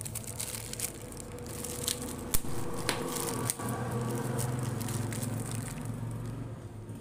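Plastic packet crinkling and rustling with many small clicks as new motorcycle drum rubbers are unwrapped by hand, with one sharp knock about two and a half seconds in.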